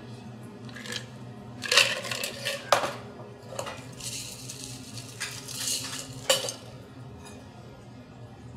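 Stainless steel mixing tin and metal bar tools clinking and clattering on a bar counter, with a rattly scraping in between and three sharp clanks: about two seconds in, near three seconds and just past six seconds.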